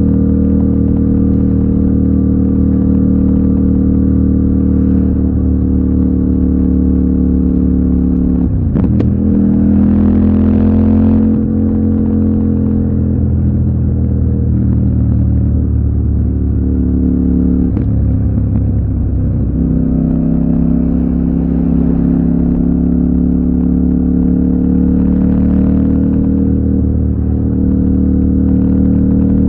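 CFMOTO 800NK's parallel-twin engine running under way on the road, with a brief drop in revs and then a pull up about nine seconds in, and another change in revs around eighteen seconds.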